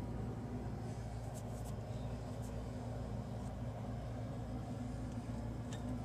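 Steady low hum with a few faint clicks of small faucet parts being handled and seated.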